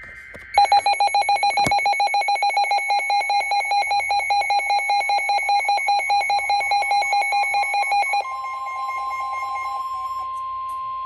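NOAA Weather Radio severe-warning alert: a short faint burst of SAME data tones, then a loud, rapid electronic alarm beeping for about seven seconds, giving way to the steady single-pitch 1050 Hz warning alarm tone.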